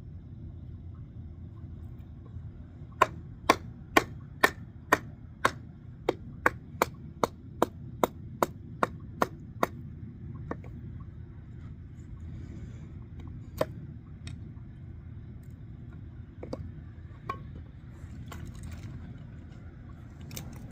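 Kindling being chopped: a quick run of about sixteen sharp chops, two or three a second, then a few single knocks, over a steady low rumble.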